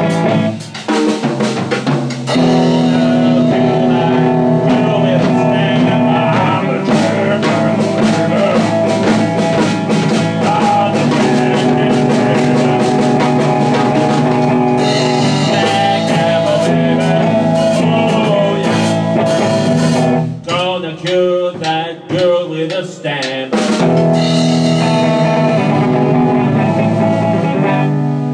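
Slow blues jam played on guitar with drums, instrumental with no singing. Around two-thirds of the way through the playing thins to a sparser, broken-up passage, then fills out again before stopping at the end.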